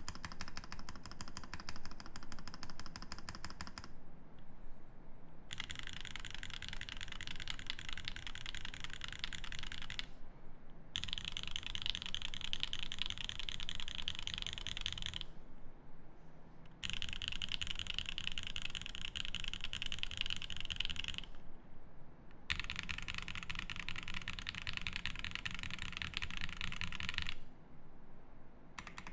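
Fast typing on a custom mechanical keyboard with lubed Seal linear switches in a brass plate and GMK keycaps: rapid keystrokes in five bursts of a few seconds each, with short pauses between them.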